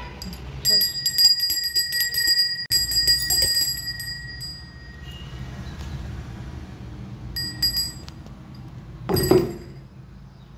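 Small puja hand bell (ghanti) shaken rapidly, ringing with clear high tones in two quick spells, then a few more strokes a couple of seconds later. A short loud sound comes about nine seconds in.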